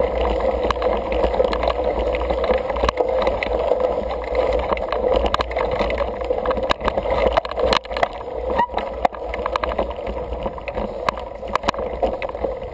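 Single-speed 29er mountain bike rolling over a dirt trail, heard through the ride camera's microphone: steady wind rumble and tyre noise, with sharp rattling clicks from bumps, more of them in the second half.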